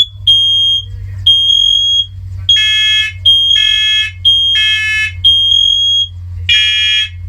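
First Alert Onelink smoke alarms sounding loud test beeps, about one a second. At first it is a single high tone. A few seconds in, fuller, lower-toned beeps join and overlap it as the other interconnected units pick up the alarm late.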